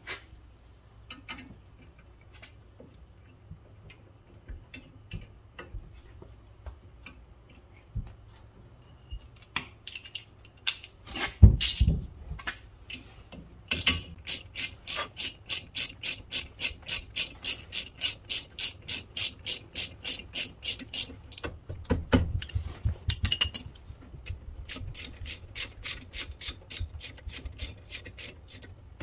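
Ratchet wrench clicking as the brake caliper bolts are run in. There are scattered clicks at first and a loud knock about a third of the way in, then long, even runs of about four clicks a second: one through the middle and another near the end.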